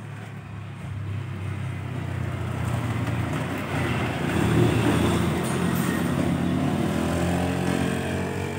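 Motorbike engine approaching along the road and passing close by, loudest about halfway through.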